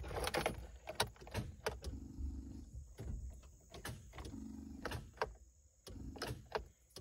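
A key being jiggled and turned in a 1997 Nissan's ignition lock: scattered clicks and small rattles, with two brief low hums about two and four and a half seconds in.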